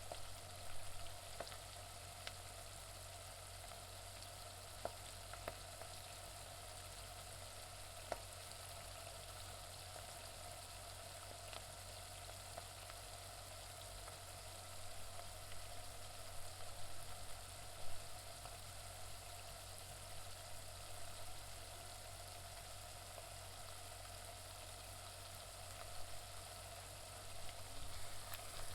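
Onions frying in a pan: a steady sizzle broken by scattered sharp pops, with a few louder crackling stretches partway through and near the end.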